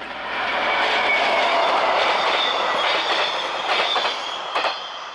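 A ZSSK class 754 diesel locomotive and its passenger coaches pass close by, the engine working under power, the sound rising quickly and then fading as the train goes away. Thin high wheel squeal runs through the pass, and a few sharp clacks of wheels over rail joints come near the end.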